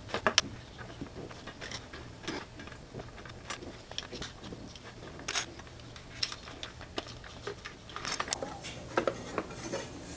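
Hex key and small bolts clicking and clinking against metal as a cover plate is unbolted from a Kawasaki Vulcan S 650 and lifted off. The taps come irregularly, with a quick run of clinks near the end.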